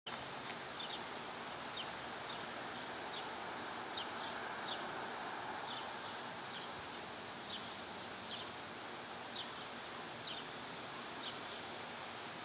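Outdoor backyard ambience: a steady background hiss, with a bird giving short high chirps about once a second and a faint, high, pulsing insect trill.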